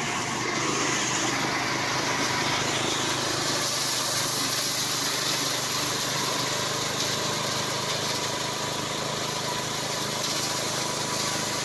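Prototype rice-threshing machine running steadily: a constant machine hum with a rushing, whirring noise over it.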